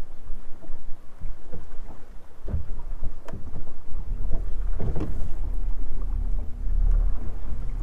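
Strong wind buffeting the microphone and choppy waves slapping against the boat's hull in irregular knocks, with a steady low hum coming in about halfway.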